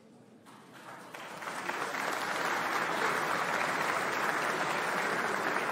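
Assembly members applauding: the clapping starts about half a second in, swells to full strength within the next second or so, and then holds steady.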